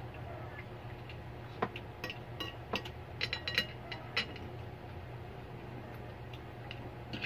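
Spoons and forks clinking against plates as two people eat, in scattered light clinks, several of them bunched together in the first half. A steady low hum runs underneath.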